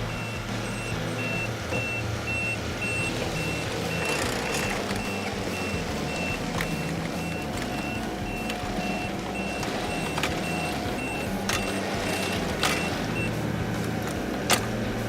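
Backup alarm on a compact diesel machine beeping steadily, about two beeps a second, over the engine running, with a few sharp knocks; the beeping stops near the end.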